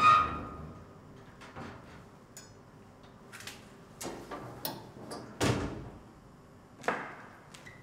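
Metal locker door clanking open with a brief metallic ring. It is followed by rustling and a series of dull knocks and thuds, the heaviest about halfway through.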